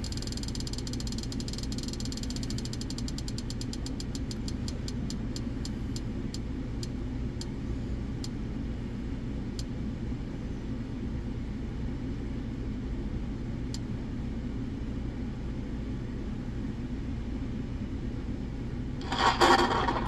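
Ticking of a spinning prize wheel used to pick a giveaway winner: rapid clicks that slow down and space out until the wheel stops about fourteen seconds in. A steady low hum runs underneath, and there is a short, louder burst of noise near the end.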